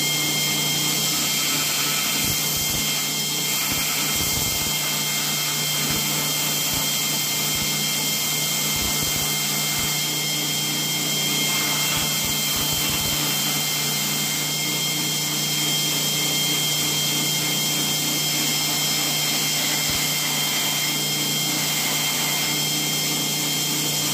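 Knifemaker's belt grinder running steadily, with a knife's wooden handle pressed against the sanding belt to shape it.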